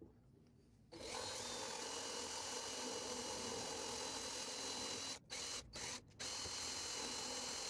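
An electric power tool starts about a second in and runs steadily with a high whine. It cuts out briefly three times near the end.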